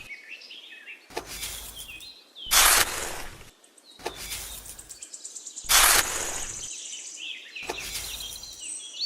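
Birds chirping faintly, broken by five loud, noisy strokes about a second long at roughly one-and-a-half-second intervals.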